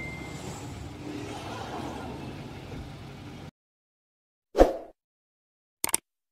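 A steady low outdoor rumble that cuts off abruptly, then, after a moment of silence, a short swoosh sound effect and a quick double click from a subscribe-button end-screen animation.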